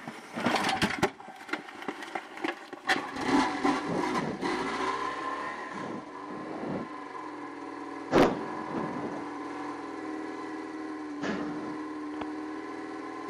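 A motorcycle being push-started, the rider sitting on it while it is shoved along; the engine catches after a few seconds and then runs steadily. Two sharp clicks come partway through.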